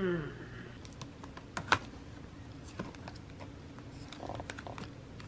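Photo prints being leafed through by hand in a cardboard box: scattered light clicks and taps, the sharpest about a second and a half in.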